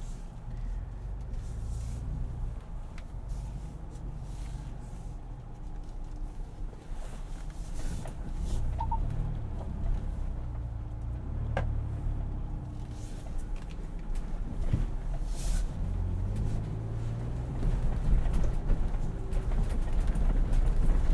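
In-cabin sound of a 2021 Ford Bronco's 2.7-litre twin-turbo EcoBoost V6 driving slowly over an off-road trail: a steady low engine and drivetrain hum with scattered clicks and knocks from the body and suspension, getting louder near the end.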